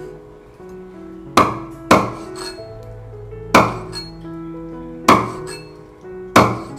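Cleaver chopping an eel into pieces on a wooden chopping board: five sharp chops. Two come close together about a second and a half in, then the rest are more spread out, over background music with held notes.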